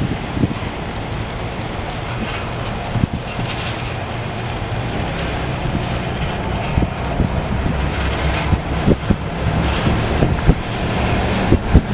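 Diesel locomotive engine running, a steady low drone that grows slowly louder, under heavy wind buffeting on the microphone, with scattered sharp knocks in the second half.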